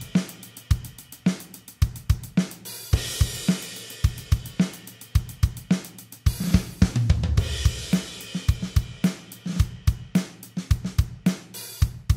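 Programmed drum kit from GarageBand's SoCal kit playing a steady rock beat on its own: kick, snare and hi-hat, with crash cymbals opening some bars and a short tom fill about seven seconds in.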